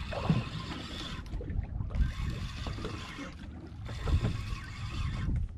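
Wind buffeting the microphone and water lapping against the hull of a drifting boat at sea, an uneven rumble under a hiss that rises and falls.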